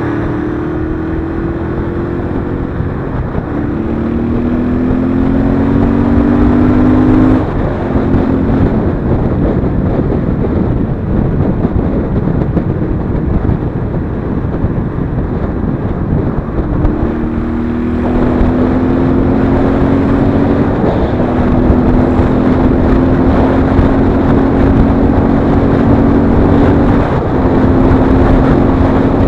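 Royal Enfield Interceptor 650's 648 cc parallel-twin engine pulling through the gears on the move: its note climbs slowly in each gear and drops back at several gear changes. Steady wind rush runs under it and swamps the engine for a stretch in the middle.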